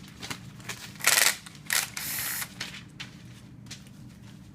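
Short hissing spray bursts blown into a string-trimmer carburetor to clear its jets and passages: a loud one about a second in and a longer one near two seconds, with small clicks of parts being handled.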